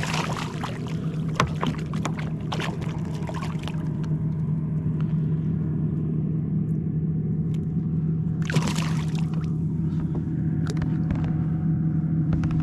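A motor humming steadily at one unchanging pitch, with short noisy bursts of splashing and handling over it, the largest about eight and a half seconds in.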